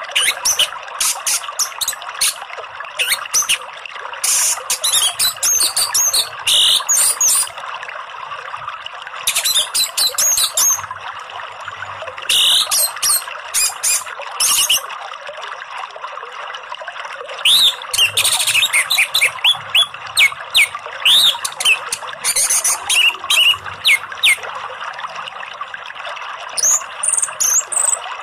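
Orange-headed thrush singing in repeated bursts of high, quickly varied phrases over a steady rush of flowing water.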